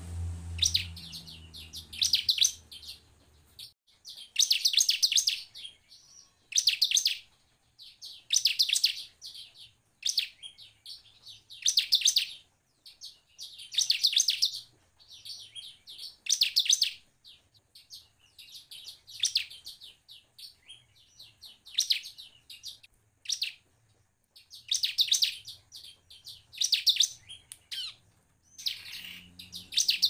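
Bar-winged prinia (ciblek) singing: short bursts of rapid, high chattering notes about every two seconds.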